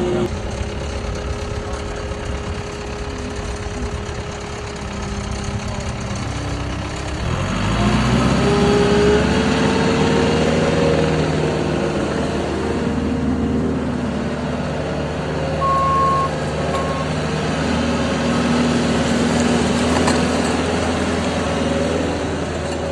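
JCB 1CXT compact backhoe's diesel engine idling, then revving up about seven seconds in and running at higher revs with the pitch wavering as it works. Two short high beeps, like a warning alarm, sound about two-thirds of the way through.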